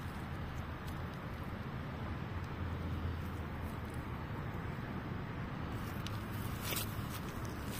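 Steady low outdoor rumble, with one faint click near the end.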